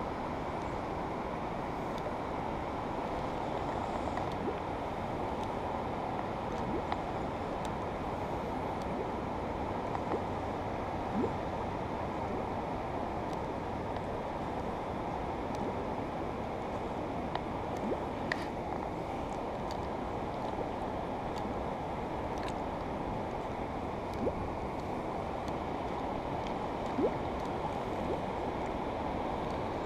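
Steady low wash of river water and wind noise around the floating angler, with a few faint ticks scattered through.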